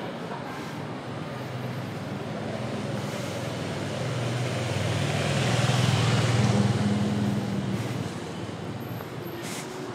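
A motor vehicle driving past in street traffic: its engine hum and tyre noise swell to a peak about six seconds in, then fade, over steady street noise.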